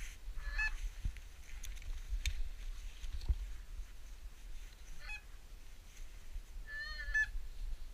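Geese honking: a few short honks near the start and about five seconds in, then a louder run of honks about seven seconds in. A steady low wind rumble sits on the microphone underneath.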